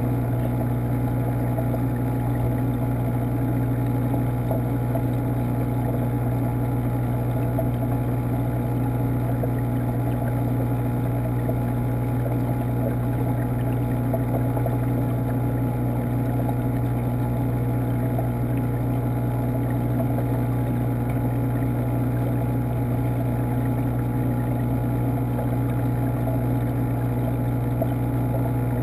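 Saltwater aquarium's water pump running: a steady low hum with a constant rush of moving water, unchanging throughout.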